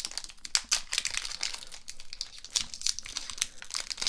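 Foil wrapper of a Pokémon booster pack crinkling and crackling in the hands as it is opened, with many quick, irregular crackles.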